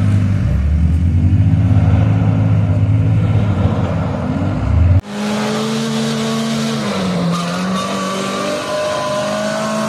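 Off-road 4x4 engines. First, a loud, steady low engine sound under load. About halfway there is an abrupt cut to another engine running with a whine that dips and then rises in pitch.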